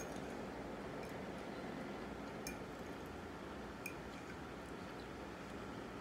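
Quiet wet chewing and a metal fork cutting into fried fish, clicking twice against a ceramic plate, over steady room hiss.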